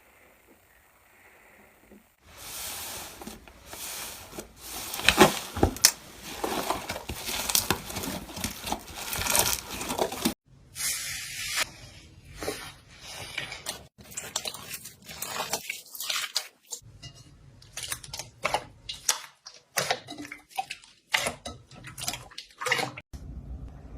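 Slime being squeezed and poked by hand: wet squishing with many sharp little pops and crackles. It starts about two seconds in and goes on in clusters with short pauses.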